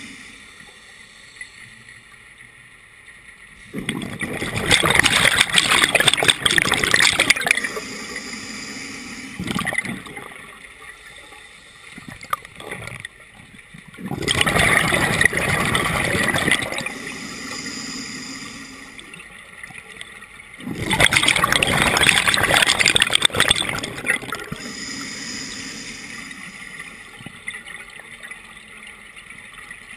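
Scuba diver breathing through a regulator underwater: three bursts of bubbling exhaust, each about three seconds long and coming about every eight seconds, with a short, quieter hiss between them.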